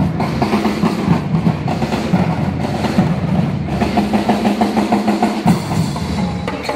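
Drum troupe playing a fast, loud rhythm together on drums.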